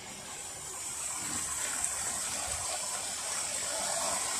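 Steady rushing hiss that grows louder over the first second or so and then holds.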